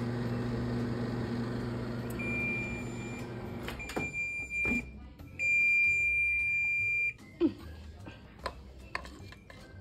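Microwave oven running with a steady hum that stops about four seconds in, while a high electronic beep sounds three times, the last the longest and loudest. A few light knocks follow near the end.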